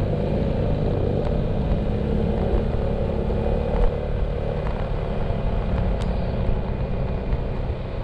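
Motorcycle engine running steadily while riding along, with road and wind rumble on the onboard camera microphone.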